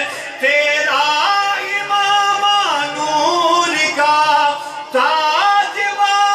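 A man singing a naat into a microphone, drawing out long held notes that glide up and down between pitches in an ornamented, wordless-sounding run.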